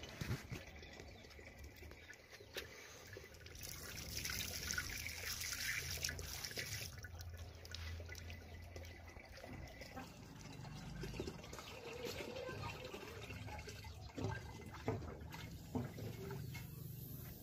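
A thin stream of water pouring from a plastic pipe into standing water, a steady trickle and splash. A few light clicks come near the end.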